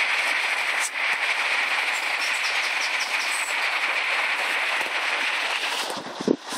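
Steady rush of a fast-flowing river over stones, with a short low thump or buffet about six seconds in.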